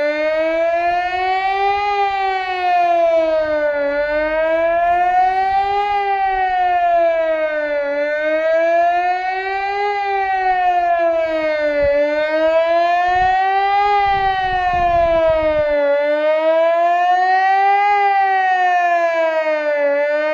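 Ergatec APEX-6 electronic civil-defence siren with six loudspeakers, sounding the Swiss General Alarm test signal: a loud wail that rises for about two seconds and falls for about two, over and over.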